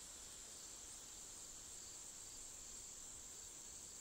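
Faint, steady, high-pitched chorus of insects, a continuous even trill over a low outdoor hiss.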